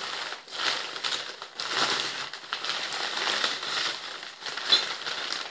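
Thin plastic shopping bag and newspaper wrapping crinkling and rustling in uneven handfuls as an item is pulled out and unwrapped.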